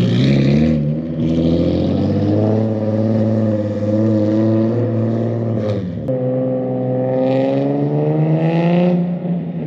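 Turbocharged Nissan 350Z's V6 engine running loudly and climbing in revs. The pitch drops sharply about six seconds in, then climbs again.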